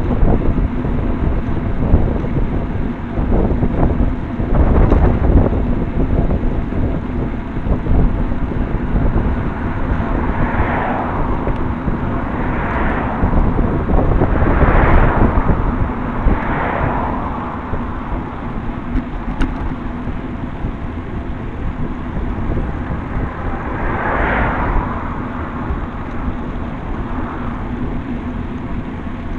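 Wind buffeting the microphone of a camera mounted on a moving road bike, over steady tyre and road rumble. Several vehicles swish past in the middle and one more passes later on.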